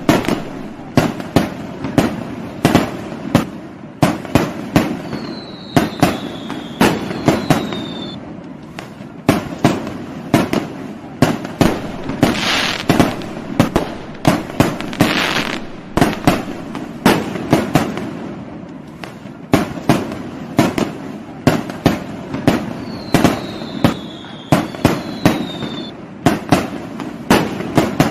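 Fireworks going off in a continuous barrage: a rapid, irregular string of sharp bangs and pops with crackling and a few longer hissing bursts. Twice, a short falling whistle sounds above the bangs.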